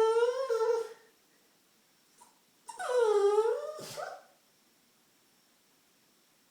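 A dog's weird, bird-call-like whine, which is the noise it makes when excited and anxious for a treat. It gives two long, wavering calls: the first trails off about a second in, and a second one runs from about three to four seconds in.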